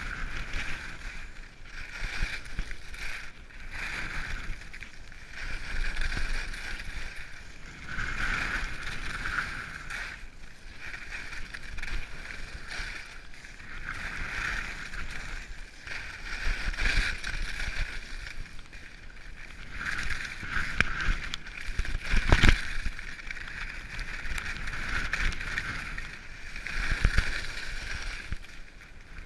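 Skis carving turns on firm snow: the edges scrape and hiss in swells that rise and fall every couple of seconds, over low wind rumble on the microphone, with one sharp knock about three-quarters through.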